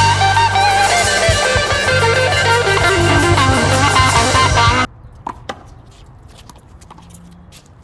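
Rock music with electric guitar cuts off suddenly about five seconds in. It gives way to quieter live court sound with a few sharp smacks of a handball being hit.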